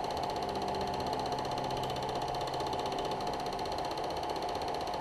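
Film projector running: a steady, rapid mechanical clatter over a constant hum.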